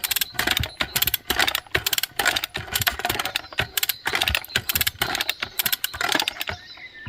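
Ratchet of a lever-operated chain puller clicking in rapid runs as the lever is pumped back and forth, hauling a tree stump under load. The clicking stops near the end.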